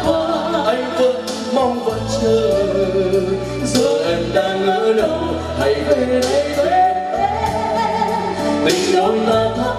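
A man and a woman singing a slow Vietnamese love-song duet live over band accompaniment, with long held notes.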